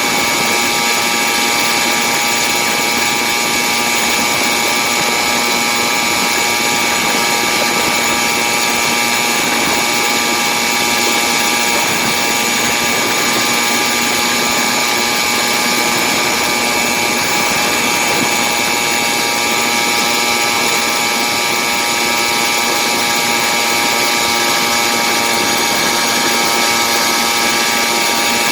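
Two-stroke engine of a motorized bicycle built on a Stihl MS460 chainsaw cylinder, running under load at an unchanging pitch while cruising at steady speed.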